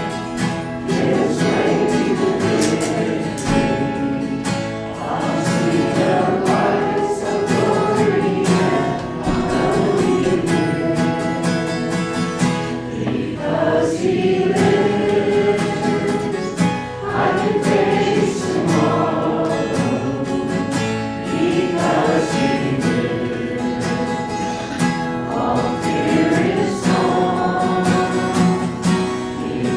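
A group of voices singing a Christian song together, accompanied by acoustic guitar.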